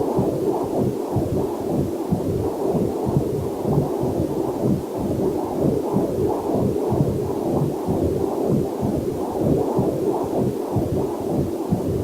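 Fetal heartbeat picked up by a Doppler heart monitor: fast, even whooshing pulses, about two to three a second, with a faint waterfall hiss mixed underneath.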